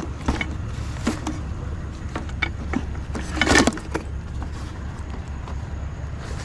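Light metallic clinks and knocks from scrap metal being handled, with a louder clatter about three and a half seconds in, over a steady low vehicle rumble.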